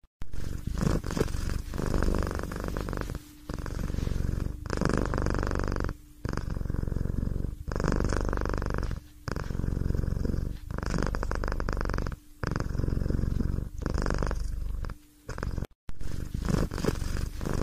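A domestic cat purring loudly, breath after breath, each purr lasting about one to three seconds with brief pauses between.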